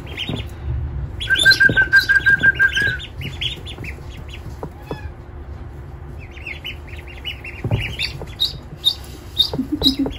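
Newly hatched ducklings peeping, a stream of short high calls with a quick run of about ten notes about a second in.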